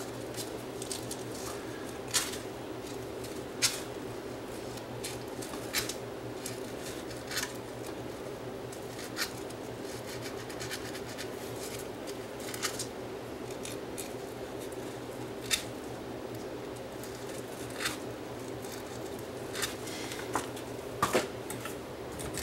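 Aluminum oxide sandpaper scraping the enamel off the copper magnet-wire lead of a small toroid coil, in short separate scratchy strokes every second or two, to bare the wire for soldering. A steady low hum runs underneath.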